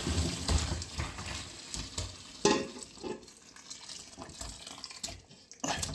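Cooking pot and utensil sounds: metal clinks and scraping over a steady hiss, with a sharp knock about two and a half seconds in.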